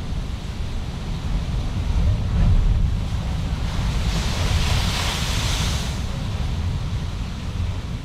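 Heavy surf breaking against a lava-rock coastline: a deep rumble of the wave, loudest about two seconds in, followed about four seconds in by a two-second hissing rush of whitewater and spray. Wind buffets the built-in microphone throughout.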